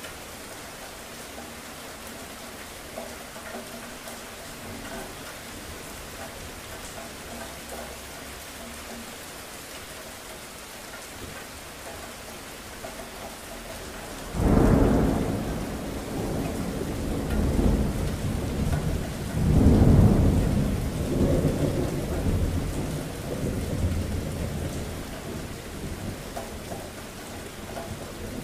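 Steady rain falling, then about halfway through a sudden thunderclap that rumbles on in two swells for about ten seconds before dying away under the rain.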